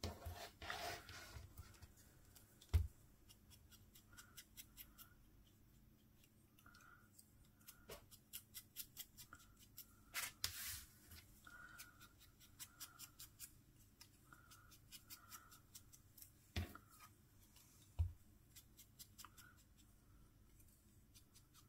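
Small craft scissors snipping cardstock, faint: runs of quick, sharp snips a few per second, broken by a few soft thumps of the card or hands on the table.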